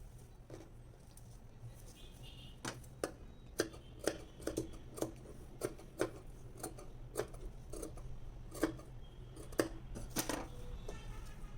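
Tailor's scissors snipping, a series of sharp irregular clicks about one or two a second, over a steady low hum.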